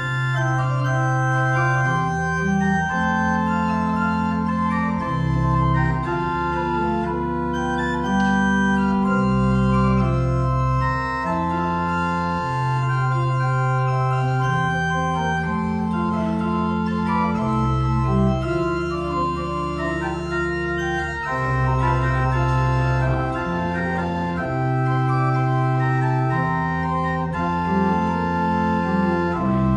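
Berghaus pipe organ (Op. 72, 1988) playing sustained chords, with a bass line moving from note to note every second or two beneath them.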